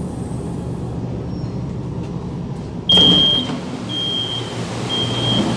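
Steady low hum inside a stopped CSR Zhuzhou 'AMY' LRT car. About three seconds in, the doors open with a sudden rush of noise, and the door beeper starts: short high beeps about once a second.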